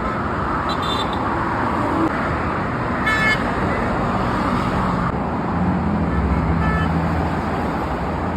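Road traffic passing close by, with car horns tooting briefly a few times: a short toot about a second in, a louder one about three seconds in, and a fainter one near seven seconds.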